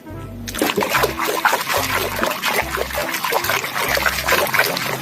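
Water running and splashing over a plastic toy as it is rinsed, starting about half a second in, with background music underneath.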